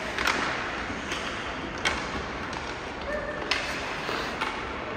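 A few sharp knocks, four spaced a second or more apart, over steady background noise with faint distant voices.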